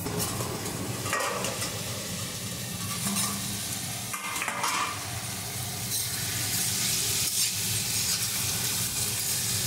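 Ridge gourd, potato and onion frying in hot oil in a karahi, sizzling steadily while being stirred, with a few scraping strokes against the pan.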